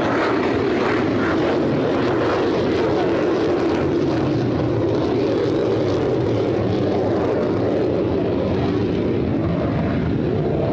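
Steady jet aircraft engine noise, with its higher hiss thinning out over the second half.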